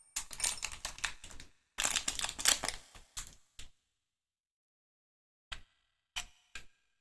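Small metal pistol parts clicking and rattling in quick runs during the first half, then a few single clicks near the end, as the miniature spring-powered Beretta 92 copy is handled.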